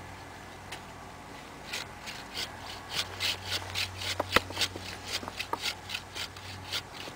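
Hand saw cutting through the trunk of a Christmas tree near its base, in quick back-and-forth strokes about four a second that start a couple of seconds in.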